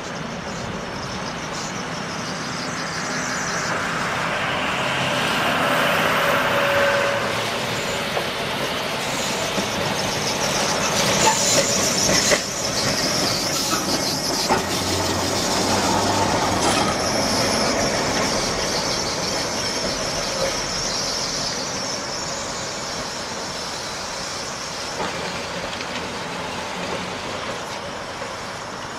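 Vintage electric streetcar rolling past on its track, growing louder as it approaches and fading as it moves away. Sharp clicks of the wheels over rail joints come as it passes close, and a faint high wheel squeal follows as it heads off around the curve.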